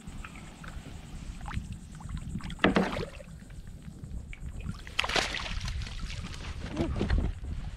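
A hooked speckled trout splashing and thrashing at the surface beside a kayak as it is brought in and netted, with water sloshing against the hull; two louder splashes about three and five seconds in.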